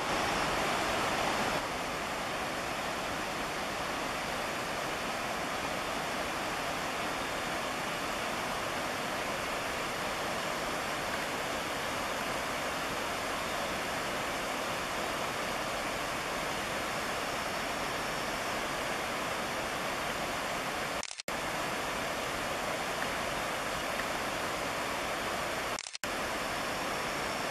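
Steady rushing noise with no calls or other distinct sounds in it, cutting out briefly twice near the end.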